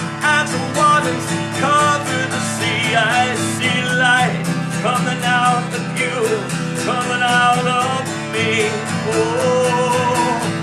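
Acoustic guitar strummed steadily, with a voice singing a melody over it without clear words.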